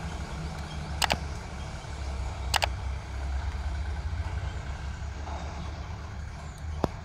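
Low, steady rumble of a heavily loaded goods truck's diesel engine approaching on the road. Sharp double clicks come about a second in and again about two and a half seconds in.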